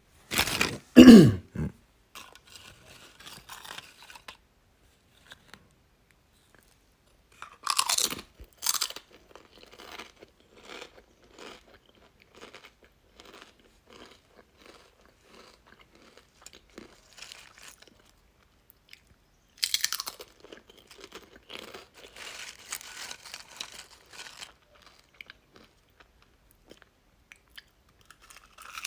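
A person biting into and chewing crunchy chips: three loud crunching bites, one near the start, one about eight seconds in and one about twenty seconds in, each followed by a run of softer, rhythmic chewing crunches.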